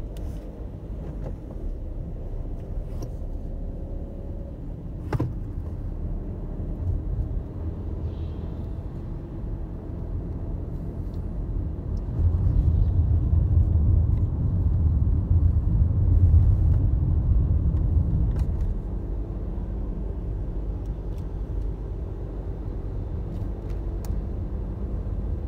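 Low, steady rumble inside a moving car's cabin: engine and road noise while driving, growing louder for about six seconds midway.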